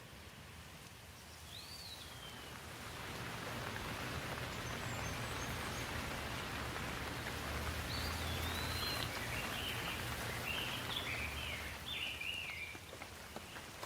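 Steady rain falling, swelling up over the first few seconds and easing slightly near the end, with a bird chirping a few times and a quick run of chirps in the second half.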